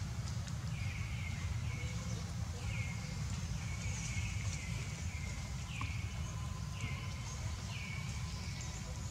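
An animal's short high chirps, repeated about once a second, each dropping in pitch and then holding briefly, over a steady low rumble.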